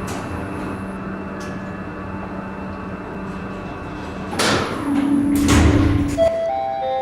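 High-speed elevator cabin humming steadily, then about four seconds in its doors slide open with a louder rush of noise. Near the end a few steady chime-like tones begin.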